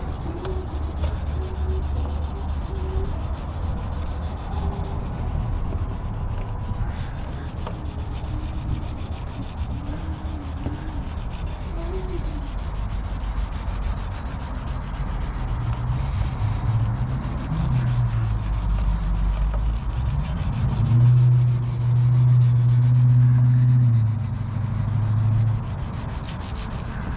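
Hand wet-sanding an oxidized plastic headlight lens with fine 2000-grit sandpaper on a foam disc holder: a continuous back-and-forth rubbing. For a few seconds near the end it gets louder and a low hum joins it.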